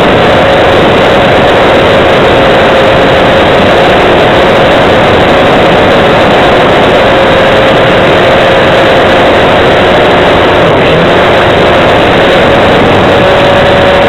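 Homebuilt RC model plane's motor and propeller running steadily, a loud, steady hum with a slight waver in pitch over heavy rushing noise, picked up by an action camera mounted on the plane.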